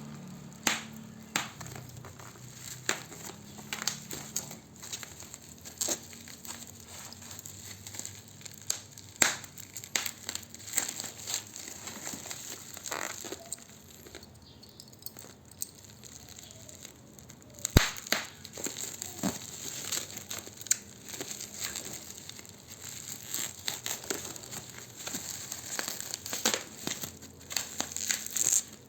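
Phone packaging being handled: plastic film and paper crinkling and tearing, with many scattered clicks and taps and one sharper snap about eighteen seconds in.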